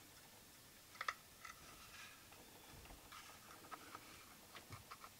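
Faint clicks and light knocks of a robot vacuum's plastic fan housing being handled and pried apart by hand, with the sharpest click about a second in.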